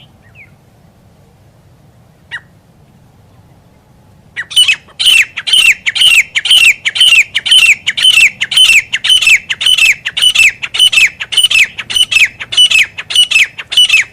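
Grey francolin calling. After a single faint chirp, a loud, fast run of sharp repeated notes, each falling in pitch, starts about four and a half seconds in at roughly three a second.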